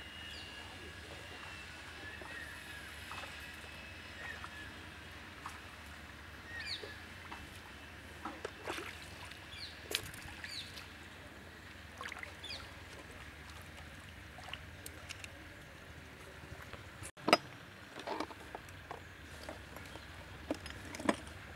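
Sloshing and splashing in shallow muddy water, with scattered knocks and snaps over a steady outdoor background, and one sharp knock late on.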